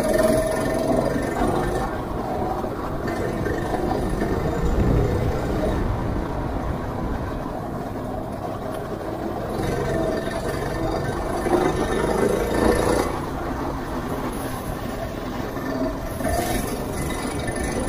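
270 cc go-kart engine running hard under load, heard from the driver's seat, its note rising and falling over and over.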